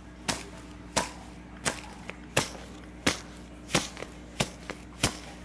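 About eight sharp taps, evenly spaced at a bit more than one a second: a small container being tapped to shake a little more of its contents into a tub of fluffy slime.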